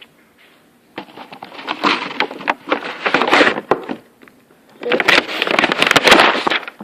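Slime being mixed and worked, heard as two spells of squishing and crackling clicks: one of about three seconds starting a second in, then a shorter one near the end.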